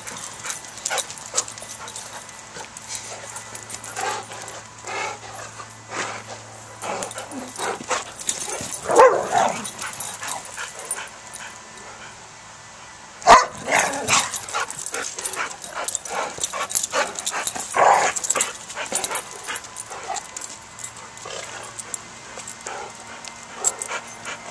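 Dogs at play barking and yipping in short bouts, loudest about nine and thirteen seconds in, between scattered light clicks.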